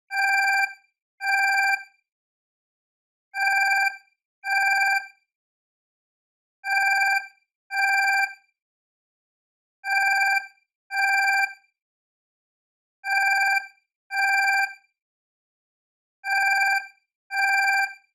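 Alarm clock alarm sound effect: pairs of steady electronic beeps, a new pair starting about every three seconds.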